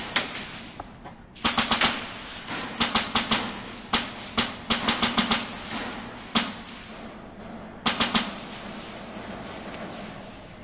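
Airsoft gunfire: quick bursts of three to six sharp shots with single shots between, stopping about eight seconds in.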